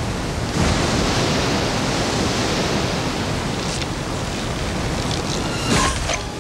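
Steady rushing of a fast river current, a cartoon water sound effect. It gets louder about half a second in, and a few brief sharp sounds come near the end.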